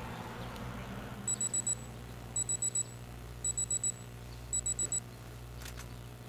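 Electronic alarm clock beeping: four bursts of four quick high beeps, about a second apart, followed by a single click near the end.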